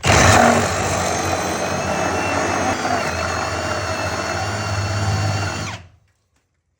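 Power drill driving a Milwaukee Big Hawg carbide-tooth hole saw into wood: a steady whine with cutting noise for about six seconds, then it stops abruptly.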